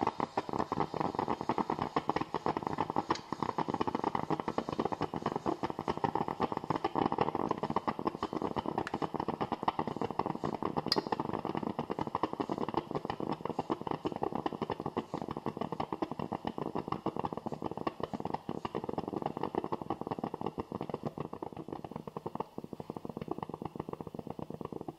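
Coffee maker brewing: a steady, dense gurgling and sputtering that eases slightly near the end.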